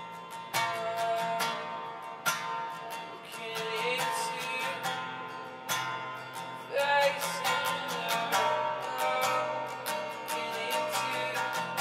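Worship music: an acoustic guitar strummed in a steady rhythm over sustained instrument notes, with a few sliding melodic notes.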